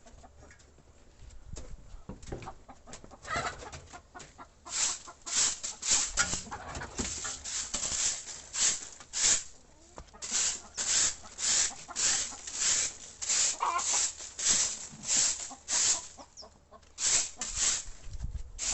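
Domestic chickens clucking in a hen house, with a rhythmic scratching of about two strokes a second from about a quarter of the way in.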